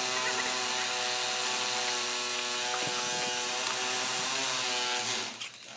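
A small motor running steadily at one pitch, cutting off about five seconds in.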